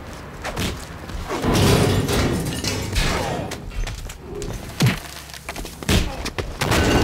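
A run of thuds and bangs, with two sharp knocks about five and six seconds in.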